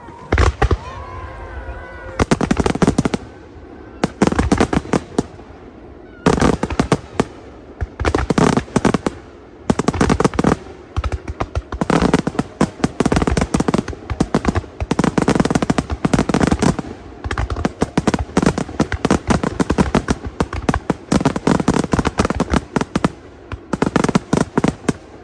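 Aerial fireworks bursting in rapid volleys of sharp bangs and crackles, one cluster about every two seconds.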